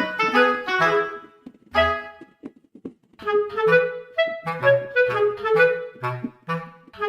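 Background music: a melodic tune of short, clean notes over a repeating bass line, breaking off briefly about two and a half seconds in before picking up again.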